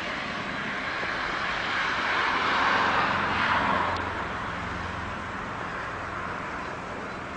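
A vehicle passing by: its noise builds to a peak about three seconds in and then fades away, over a steady low hum.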